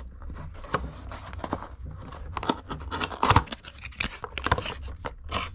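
Cardboard toy box being opened by hand: its taped front flap pulled open with a run of short tearing and scraping sounds, the loudest a little past three seconds in.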